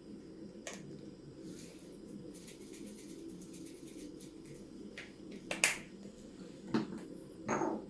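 A spice container being handled and tapped over a bowl of flour, giving a scatter of light clicks and a few sharper ticks late on, over a faint low steady hum.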